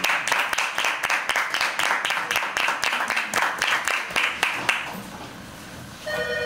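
A small group applauding with distinct individual hand claps, dying away about five seconds in. Near the end a phone starts ringing with a steady electronic ringtone.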